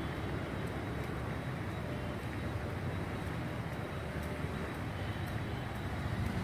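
Steady rumbling outdoor background noise with a faint hiss, without any single distinct event.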